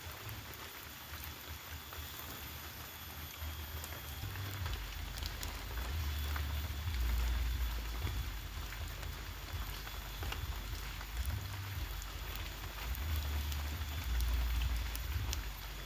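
Steady hiss of rain with scattered faint ticks of drops, over a low rumble that swells and fades several times.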